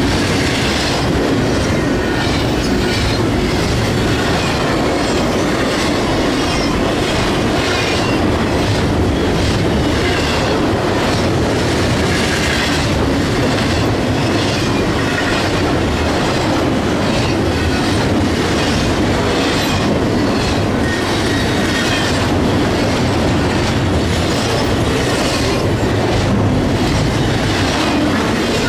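Double-stack container train of well cars rolling past close by: a steady, loud rumble of steel wheels on rail with repeated clickety-clack from the wheels.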